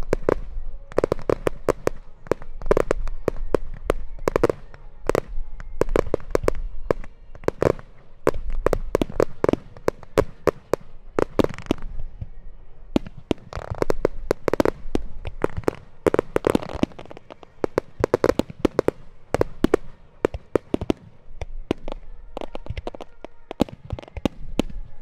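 Japanese star mine fireworks barrage: shells bursting in quick succession, with many sharp bangs several a second. The bangs are thickest around the middle and thin out near the end.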